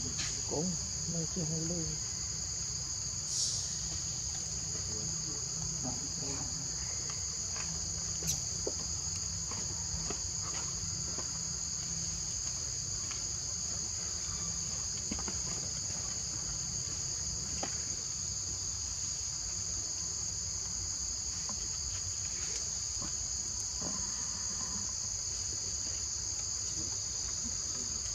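Steady, high-pitched chorus of insects, running unbroken, with a few faint scattered clicks and taps beneath it.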